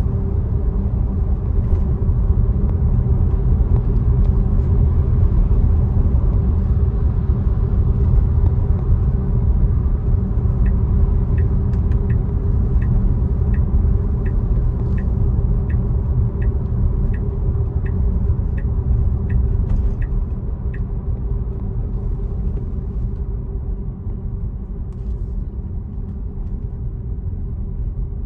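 Steady low road and tyre rumble of a Tesla electric car being driven, getting a little quieter near the end. In the middle, for about ten seconds, the turn-signal indicator ticks about one and a half times a second.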